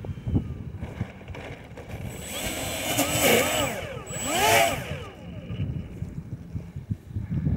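Twin propeller motors of a large RC model Fairchild C-123 Provider being throttled up and back down twice while it taxis on grass, each surge rising and then falling in pitch with a high whine, about three and four and a half seconds in.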